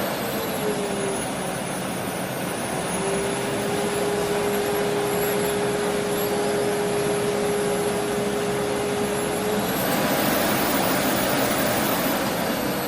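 Aspiron 1600 W bagless canister vacuum cleaner running: a loud, steady rush of air with a steady whine that drops out for a couple of seconds early on, holds for several seconds, then fades away about ten seconds in.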